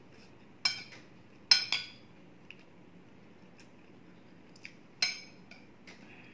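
A metal fork clinking and scraping against a plate while scooping up rice: a sharp clink under a second in, two more in quick succession about one and a half seconds in, and another about five seconds in.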